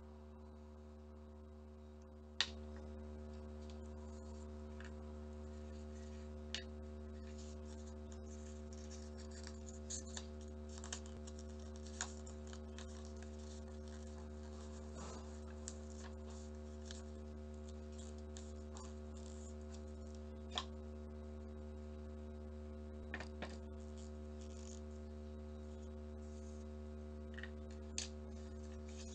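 Soft clicks, taps and rustles of paper and a bamboo skewer being handled on a wooden table, over a steady low hum. A sharp click a little over two seconds in is the loudest; the rest are a dozen or so faint taps.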